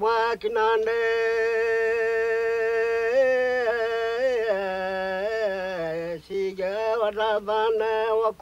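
Elderly Trobriand man singing a traditional song unaccompanied, in a chanting style. He holds one long steady note for about three seconds, then moves into a wavering melody, pauses briefly about six seconds in, and goes on in shorter phrases.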